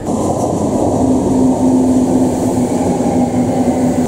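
Berlin U-Bahn train running along the platform: a loud, steady rumble of wheels and running gear with a held low motor hum that sinks slightly in pitch.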